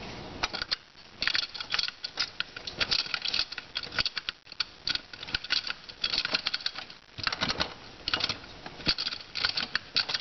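Metal parts inside a GM 440-T4 (4T60) automatic transmission clicking and rattling as they are turned and worked by hand. The clicks come in irregular quick clusters with short pauses, as the splined input housing and clutch parts are jiggled to seat them fully.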